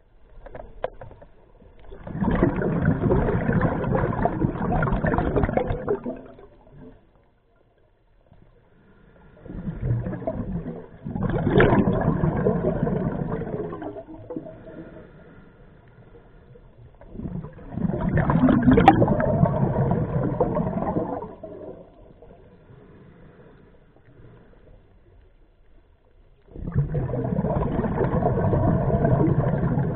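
Scuba diver breathing through a regulator underwater: four loud bursts of exhaled bubbles gurgling, each lasting about four seconds and spaced about eight seconds apart, with quieter stretches between.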